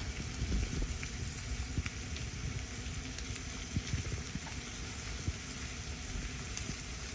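Thick cowboy ribeye steaks sizzling in melted butter on a hot flat-top griddle: a steady hiss with faint crackles over a low, uneven rumble.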